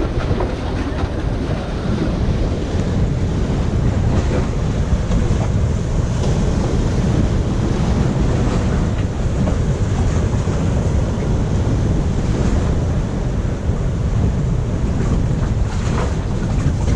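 Surf washing against the rocks of a jetty: a steady rushing noise with a low rumble.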